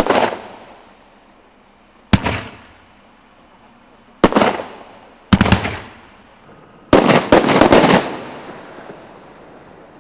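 500-gram consumer fireworks cake firing aerial shots: single sharp bangs about every two seconds, each trailing off in an echoing decay. About seven seconds in comes a quick run of several bangs, which dies away.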